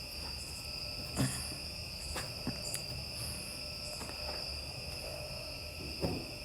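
Crickets chirring in a steady high drone, with a few light knocks and rustles of handling near it.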